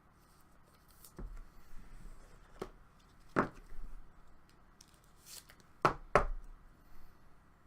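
Trading cards being handled on a table: a few scattered taps and knocks, with light handling noise between them.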